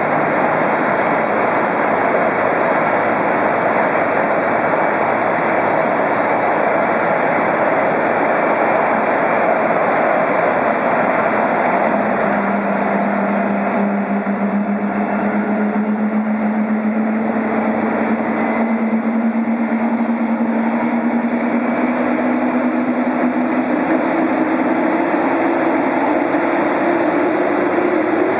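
Airbus A380-861 jet engines running on the ground, a steady roar; from about halfway through a whine rises slowly and steadily in pitch, an engine spooling up during start.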